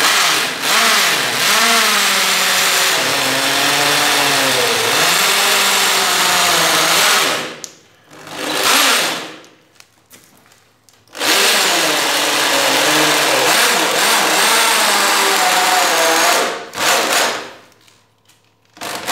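Electric drill with a 10 mm bit boring into a wooden chair frame. It runs in two long spells of several seconds with short bursts between, and the motor pitch wavers as the bit bites into the wood.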